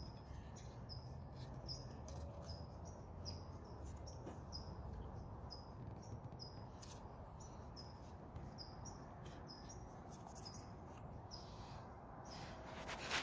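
A small bird chirping over and over, short high notes that drop in pitch, about two a second, with faint clicks and a low background rumble.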